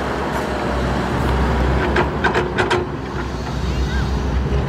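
Shantui crawler excavator's diesel engine running steadily under load as its bucket dumps dirt into a dump truck's steel bed, with a quick run of sharp knocks about two seconds in.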